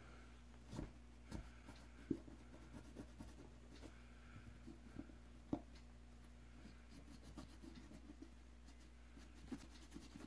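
Faint scratching with scattered light clicks and a few sharper taps from hand-scrubbing dirt off a pair of pliers, over a steady low electrical hum.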